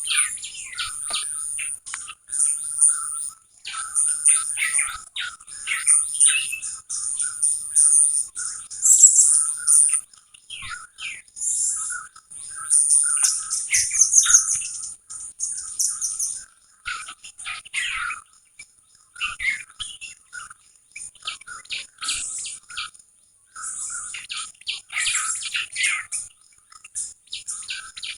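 Several small songbirds chirping and twittering in quick, overlapping calls, with brief pauses between bouts.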